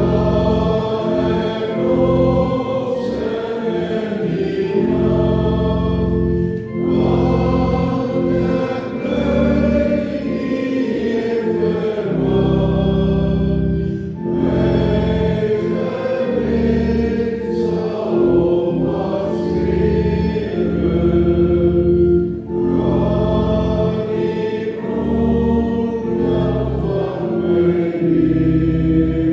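Church congregation singing an Afrikaans hymn in slow, sustained notes over instrumental accompaniment holding long low tones, with short breaths between the lines.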